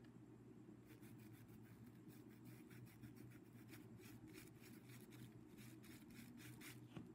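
Near silence: faint, short scratchy strokes of a paintbrush rubbing paint onto fabric, about three a second, over a low steady hum.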